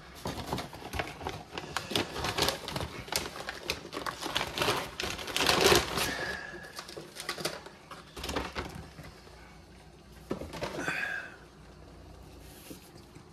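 Close-up crinkling and rustling of plastic ration packets, with many small clicks and taps as they are handled, loudest about six seconds in; one more short burst of rustling near eleven seconds, then it goes quiet.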